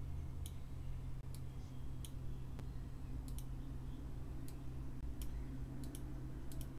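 Computer mouse button clicking: about a dozen short, sharp clicks spaced irregularly, over a steady low hum.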